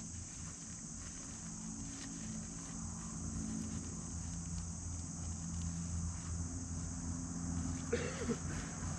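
Steady chorus of insects, high and unbroken, over the low hum of an engine running that slowly grows louder toward the end.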